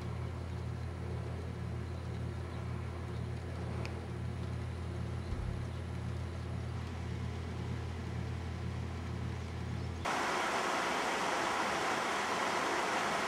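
A steady low rumble, then about ten seconds in a sudden cut to the louder, even rush of a creek's flowing water.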